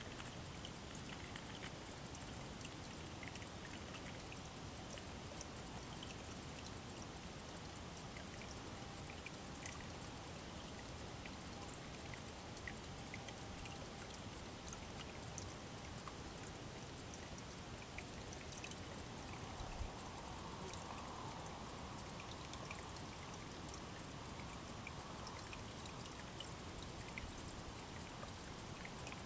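Small shallow creek trickling steadily over sticks and stones, a soft, even flow of water.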